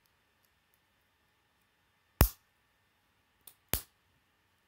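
K'nex plastic rods and connectors snapping together: two sharp clicks about a second and a half apart, with a faint tick just before the second.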